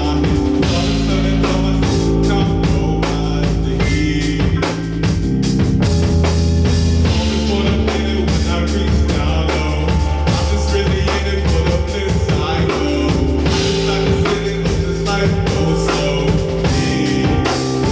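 Live band playing an instrumental passage: a drum kit keeps a beat with bass drum and snare hits over held bass notes.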